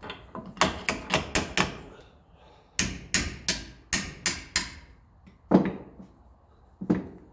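A hammer tapping a spanner onto a stubborn nut, metal on metal. There are two runs of quick taps, about four a second, then two single heavier knocks.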